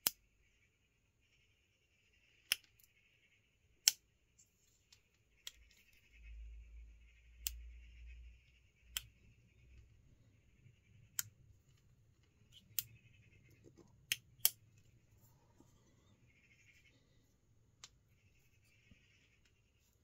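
Kershaw 2032 Esteem double-detent slipjoint blade snapping into its detents as it is opened and closed: a series of about ten sharp metallic clicks at irregular intervals.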